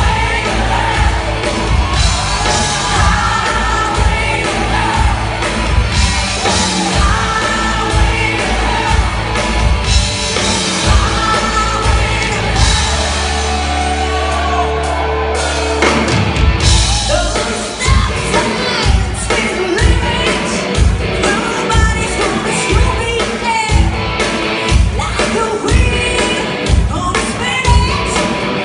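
Live rock band with singers, amplified in a large hall, playing over a steady drumbeat. About halfway through, the drums stop under a long held low chord, then the full band and the singing come back in.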